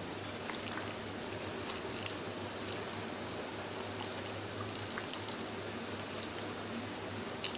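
Wet squelching and squishing of a hand kneading chicken pieces in a thick yogurt-and-spice marinade in a steel bowl, as the marinade is worked into the cuts. A low steady hum sits underneath.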